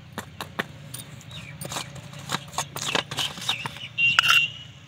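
Steel spoon clicking and tapping against a steel tray and the kulchas as ghee is dabbed onto them, a scatter of small sharp clicks. A louder brief high-pitched ring or chirp sounds about four seconds in.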